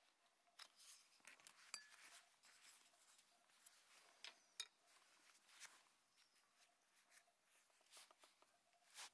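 Faint, scattered small clicks and light scrapes, with a few sharper ticks about two seconds in and again near the middle.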